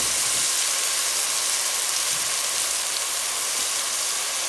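Chopped onions sizzling steadily in hot olive oil and ghee in a pot, an even, high hiss.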